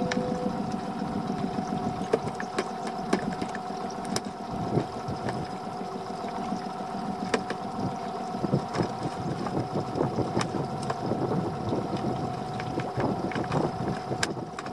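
Steady hum of a small boat's engine, with water sloshing against the hull and scattered small clicks and knocks of a fishing rod and reel being worked while a fish is reeled in.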